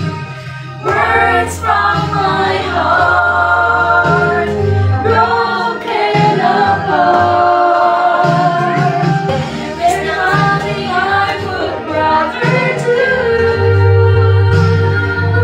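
Three women singing a worship song together in harmony into a microphone, with low sustained bass notes underneath.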